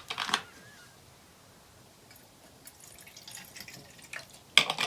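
Light kitchen handling sounds while cooking at a pan: a few faint clicks and ticks, then one sharp clack near the end.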